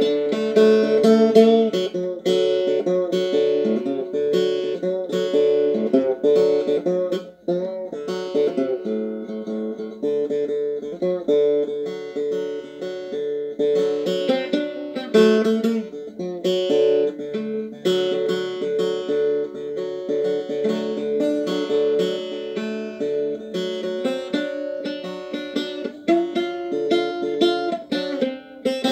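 Banjo played solo: a blues tune picked note by note, with strummed chords mixed in.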